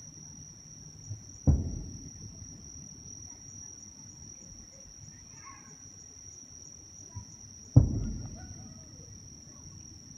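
Two distant aerial firework shells bursting, about six seconds apart, each a sharp boom followed by a rolling echo that dies away over about a second. A steady high insect chirring runs underneath.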